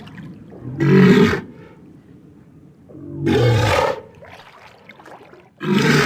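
Walrus grunting: three loud, rough, low-pitched calls, each under a second long and about two and a half seconds apart, with a faint steady background between them.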